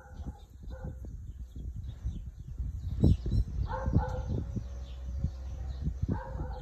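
Short pitched animal calls, about four of them, each under a second. A low rumble and low thumps run under them, the loudest thumps coming about three and four seconds in.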